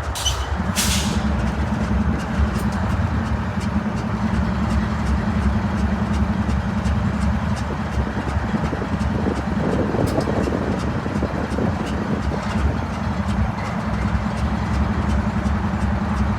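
BNSF diesel-electric locomotive running with a steady low engine drone, with two short hisses of air near the start and light clicks throughout.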